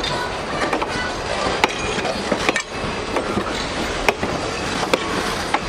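Passenger coaches of a steam excursion train rolling past close by: a steady rumble of wheels on rail, with sharp clicks as the wheels pass over rail joints every half second to a second.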